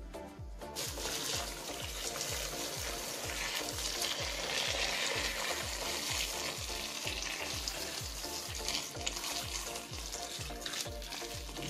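Boiling water poured in a steady stream onto chili peppers and garlic cloves in a stainless steel pot: a continuous splashing hiss that starts about a second in and is loudest midway. Background music with a steady low beat runs underneath.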